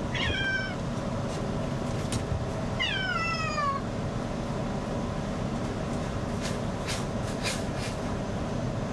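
A cat meowing twice over the steady blowing of a hair dryer: a short call at the start and a longer one about three seconds in, each falling in pitch. A few faint clicks follow near the end.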